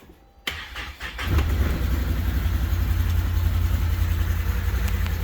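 Can-Am Maverick Trail side-by-side engine starting after a click or two about a second in, then idling steadily with a low, even rumble.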